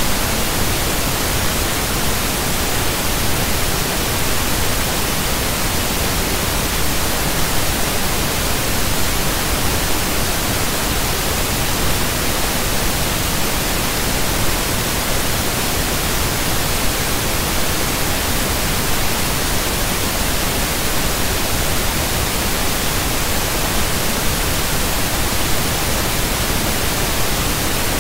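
Steady, loud hiss of static-like noise, even across high and low pitches, with no other sound.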